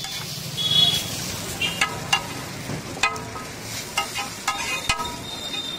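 Metal spatula clanking and scraping on a large iron griddle while chowmein noodles are stir-fried, under a light frying sizzle. The clinks ring briefly and come at uneven intervals, several in the second half.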